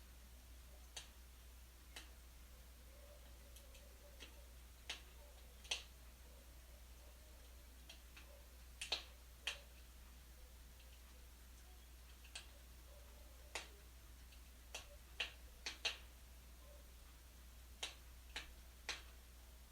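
Wood fire in a fireplace crackling: sparse, irregular sharp pops and snaps over a quiet background, a few coming in quick clusters. A low steady hum runs beneath.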